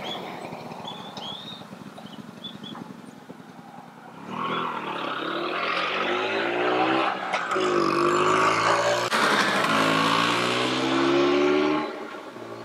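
Vespa 125 ET3 scooter's single-cylinder two-stroke engine coming into earshot about four seconds in and growing louder as it approaches, its pitch rising and falling several times. It cuts off suddenly near the end.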